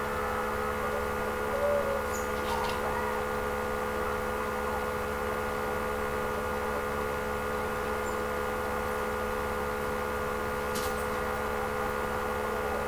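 Steady electrical hum and buzz, several constant tones over a low hiss, with a few faint clicks.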